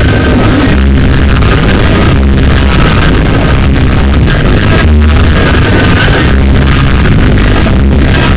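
Loud electronic dance music with a heavy, steady bass beat, played over a party sound system at near-maximum volume.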